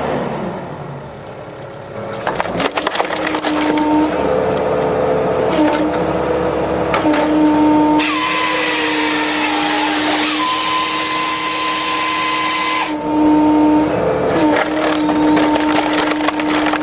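Machinery running with a steady humming tone under dense cracking and crackling, changing abruptly twice.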